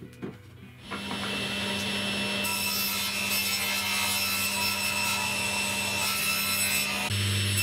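Table saw ripping a thin plywood sheet: the saw runs steadily from about a second in, and the sound of the blade cutting grows brighter at about two and a half seconds as the sheet is fed through. A few light knocks come just before the saw.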